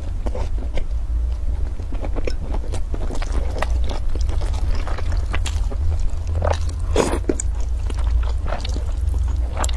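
Close-up mouth sounds of eating noodles: wet chewing with many small clicks, then noodles slurped in with a few louder swishes in the second half, over a steady low hum.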